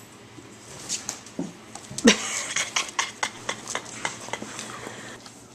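Metal puppy-pen bars clinking and rattling as border collie puppies press against them: a louder clink about two seconds in, then a quick run of light clicks, four or five a second, for about two seconds.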